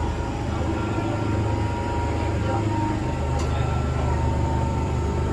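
MTR M-train electric multiple unit running between stations, heard from inside the carriage: a steady rumble of wheels on rails with a faint steady motor whine.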